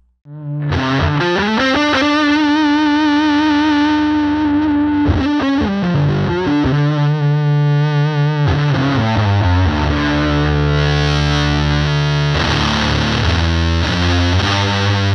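Electric guitar played through an EarthQuaker Devices Life Pedal V3 distortion in its symmetrical clipping mode, into a Fender Princeton Reverb amp. A note is bent up and held with vibrato, then heavier distorted chords and low notes follow.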